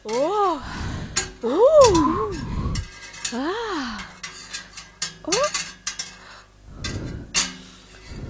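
A series of short whooping cries that each rise and fall in pitch, about one every two seconds, mixed with clattering metallic clinks and knocks.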